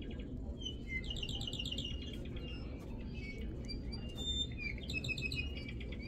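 Recorded Hawaiian forest bird songs played from a push-button exhibit speaker: a string of high whistles and short trills over a steady low background hum.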